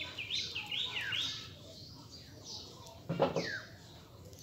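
A fast run of high chirps, about six a second, breaks off about a second in. A few downward-slurred high calls follow, and one louder, lower-pitched sound comes about three seconds in.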